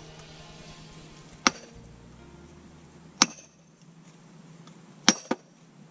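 Splitting maul striking a steel wedge driven into a log: three sharp metal-on-metal blows about two seconds apart, each with a brief ring, the last followed at once by a lighter knock. The wedge is being driven deeper to split the round, which is nearly split.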